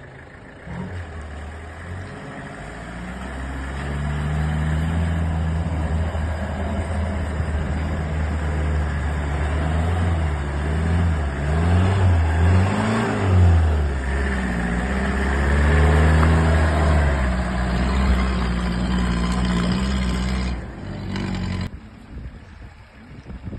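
Off-road 4x4 vehicle's engine running under load, its pitch rising and falling a few times as the throttle is worked, then cutting out near the end.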